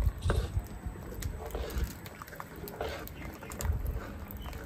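Spoon stirring and scraping in a karahi as the banana-and-milk mixture is poured into hot milk: irregular soft clicks and knocks over a low rumble.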